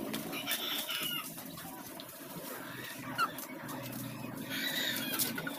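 Two short bursts of bird-like calls, one near the start and one near the end, over a low steady hum, with a single sharp knock about three seconds in.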